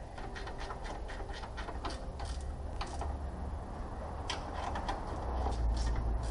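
A run of quick, sharp clicks, several a second, thinning out after the first half, over a low rumble that grows louder toward the end.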